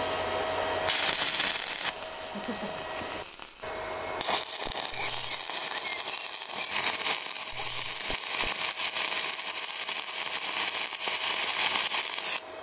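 Stick (MMA) welding arc crackling as an electrode lays a bead in a V-ground steel butt joint. A short burst about a second in, then the arc is struck again about four seconds in and crackles steadily until it cuts off suddenly just before the end.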